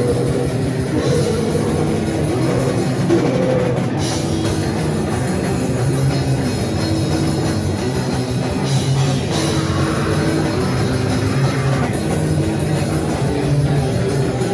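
Live band playing loud, heavy rock on drum kit and guitar, dense and continuous.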